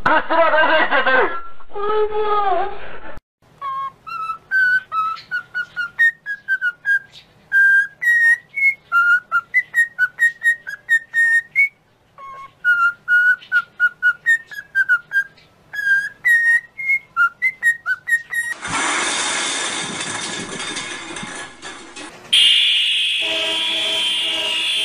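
A cockatiel whistling a tune of short, quick notes, with a brief pause partway through. Before it comes a short high-pitched cry. After it comes a loud burst of noise, and then a loud, steady alarm buzzer near the end.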